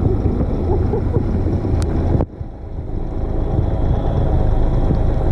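Loud, steady low rumble, with a sudden break about two seconds in before it resumes.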